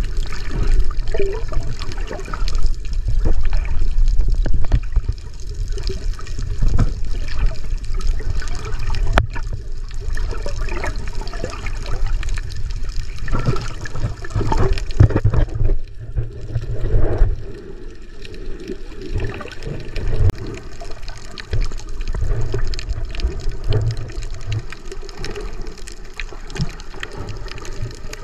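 Water sloshing and gurgling around a microphone held underwater while snorkeling: a muffled, deep rumble with irregular gurgles and splashes, easing off a little after about 17 seconds.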